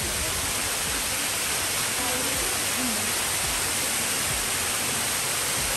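Small waterfall pouring down a rock face into a shallow rocky pool: a steady rush of falling and splashing water.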